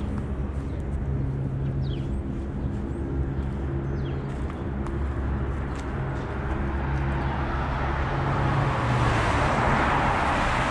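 Street traffic ambience: a vehicle engine running with a low steady hum, a few short high chirps, and a car passing with a growing hiss of tyres near the end.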